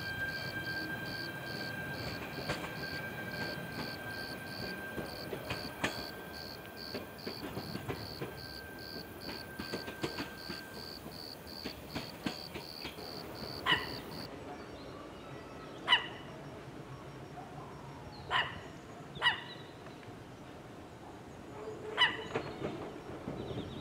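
A dog barking in short single barks, five or six times, loudest in the second half. Before that, a fading hum from a departing commuter train under a high chirp that repeats about three times a second.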